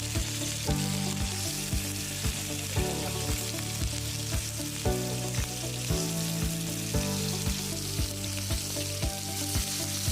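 Marinated prawns sizzling steadily as they fry in hot coconut oil in a pan, under background music with a steady beat.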